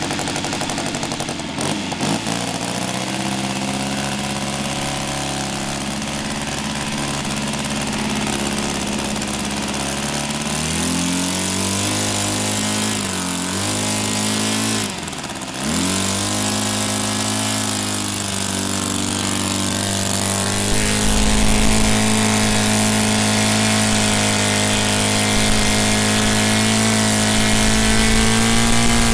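An O.S. Gemini 160 two-cylinder four-stroke model-airplane engine running on the ground while it is being tuned. Its speed steps up about ten seconds in and dips sharply twice in the middle. It then holds steady, gets louder and climbs slowly near the end as it nears full throttle.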